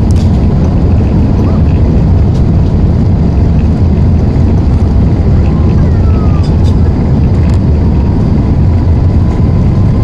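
Cabin noise aboard an Airbus A380-842 rolling along the runway: a steady, loud low rumble from its Rolls-Royce Trent 900 engines and the airframe, holding level without building up.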